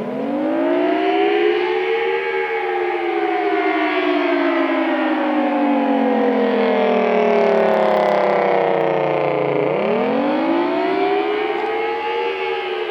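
Federal Signal Thunderbolt 1000T outdoor warning siren sounding the attack signal. Its pitch rises quickly over about two seconds, then slowly falls for about seven. Near the end it rises again.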